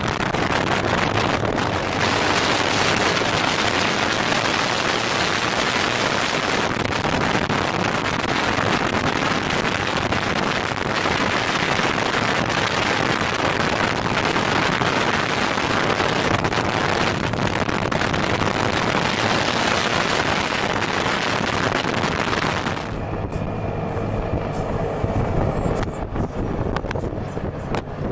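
Loud wind rushing over a microphone held out the window of a Peterbilt truck moving at road speed. About 23 seconds in, the wind noise drops off and the truck's steady engine drone comes through.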